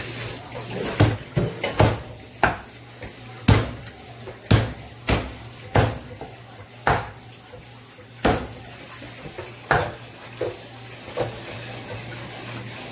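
A meat cleaver chopping cooked chicken on a thick wooden chopping block: about a dozen sharp chops at an uneven pace, stopping about eleven seconds in.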